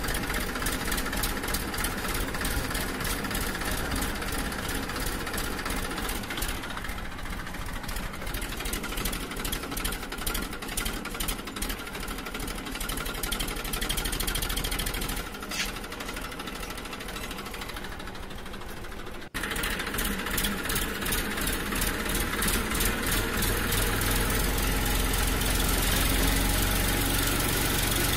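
Steady, fast-pulsing engine-like running sound. It drops quieter a little past the middle, then cuts off abruptly and resumes louder.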